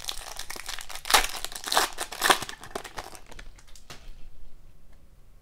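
Foil trading-card pack wrappers crinkling as packs and cards are handled, with three louder crinkles in the first three seconds, then a few light taps of card on card.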